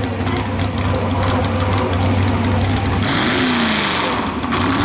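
Vintage Ford F-series pickup's engine running hard under load as it drags a weight-transfer sled along a dirt pulling track. About three seconds in, a hissing rush rises over the engine for a second or so and the engine note dips.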